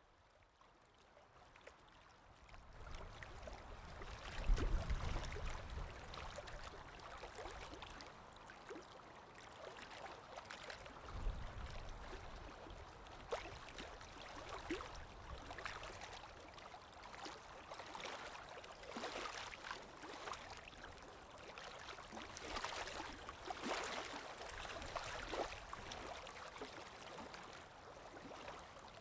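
Water sound effect: a stream trickling and splashing, fading in over the first few seconds, with a low rumble swelling twice, at about five and about eleven seconds in.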